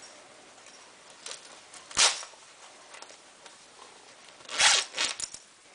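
Handling noises from a sleeping bag being worked: one short rustle about two seconds in, then a louder cluster of rustles near the end.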